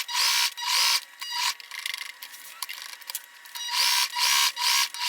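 Sewing machine running in short spurts, stitching a straight seam through paper, with quieter gaps between the runs in the middle.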